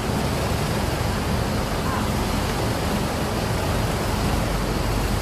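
Armoured police vehicle's engine running steadily under a dense, even hiss of noise, with faint voices.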